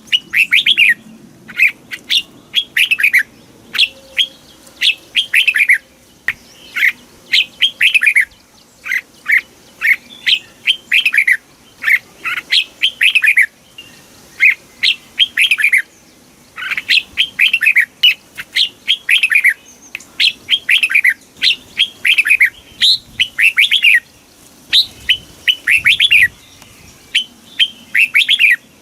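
Red-whiskered bulbul song: short, quick phrases of a few clear notes, each note sliding down in pitch, repeated about once a second with brief pauses between them.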